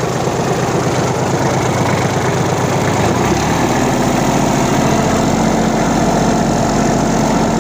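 Engine running steadily; its note changes about three seconds in.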